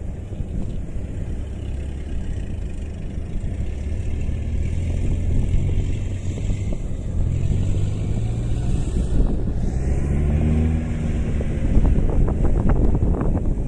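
Kubota combine harvester's diesel engine running, its pitch climbing as it revs up over a few seconds partway through. Near the end comes a run of sharp knocks or rattles.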